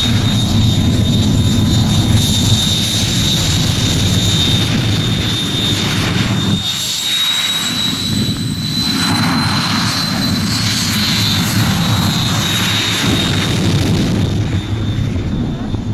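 Jet turbine on a jet-powered quad bike running loudly, a deep rumble under a steady high turbine whine that rises slightly partway through. The low rumble drops away briefly about seven seconds in, then returns.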